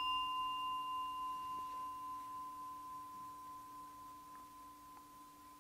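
A small meditation singing bowl, struck once just before, rings with one clear, pure high tone that slowly fades away. Its higher overtones die out within about the first second.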